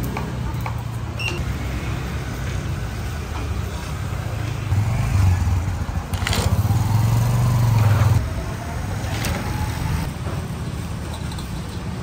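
Street traffic with motorbike engines running, one passing closer and louder about halfway through. A couple of sharp clicks ring out in the middle.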